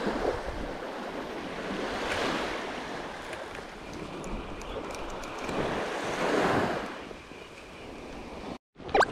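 Small surf waves breaking and washing up a sand beach, swelling twice.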